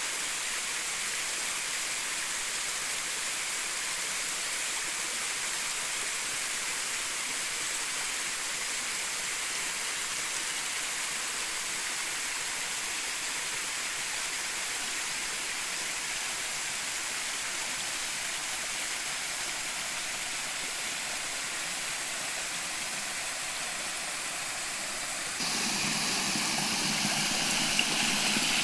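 Steady rush of falling water from a waterfall. Near the end it jumps suddenly to a louder, fuller rush.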